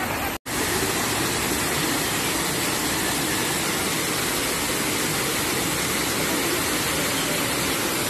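Steady rush of a waterfall and cascading water over rocks, with a momentary silent gap about half a second in.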